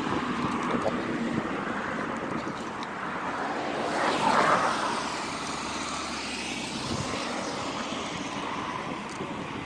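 Road traffic noise, with one vehicle passing close by about four seconds in, swelling and fading.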